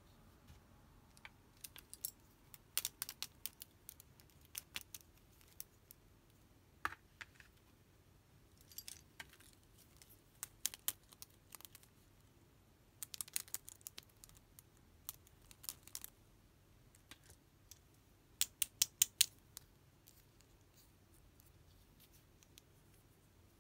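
Small plastic toy earrings clicking and tapping as they are handled: light, irregular clicks in clusters, with a quick run of sharper clicks near the end.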